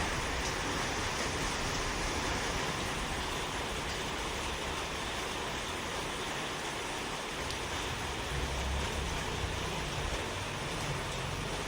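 Steady rushing noise with a low rumble and no distinct bird calls.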